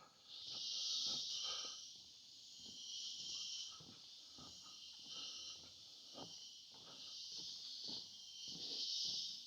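Rainforest insects buzzing in a high-pitched chorus that swells and fades in waves every second or two, with short rustles and soft steps on the forest floor in between.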